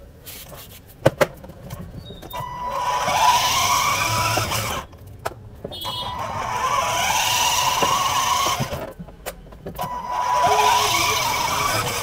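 A 12 V battery-powered ride-on toy quad bike driving in three bursts: its electric drive motors and gearboxes whine, rising and falling in pitch, while its plastic wheels roll over the tiled floor. There are two sharp clicks about a second in.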